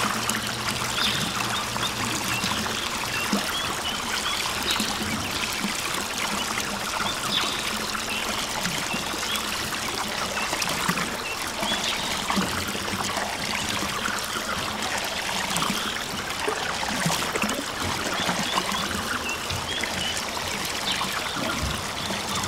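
Water trickling steadily from the blue pipe spout of a toy water tanker onto wet soil in a small planted bed.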